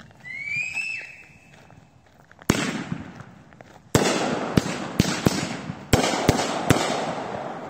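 Consumer fireworks: a short rising whistle in the first second, then, from about two and a half seconds in, a string of loud bangs about every half second, each trailing off in a long noisy tail.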